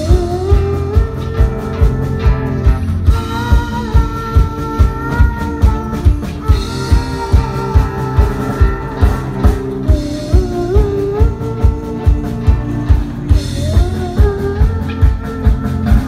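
A young girl singing a pop song into a microphone over a small live band, amplified through stage speakers: acoustic guitar and keyboard under a steady beat of about two thumps a second.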